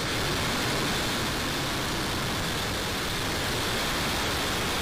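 Falcon 9 first stage's nine Merlin 1D rocket engines at full thrust just after liftoff: a steady, unbroken rush of rocket exhaust noise.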